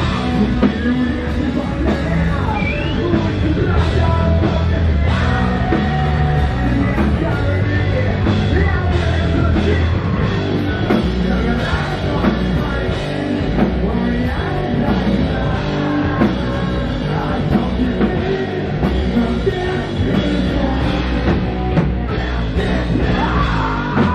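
Rock band playing with drums, bass, guitars and vocals, cutting off abruptly at the very end.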